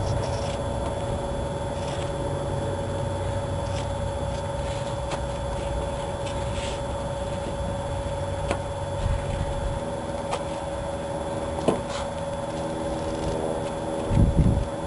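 Steady mechanical hum with a few faint clicks, and two loud low thumps near the end.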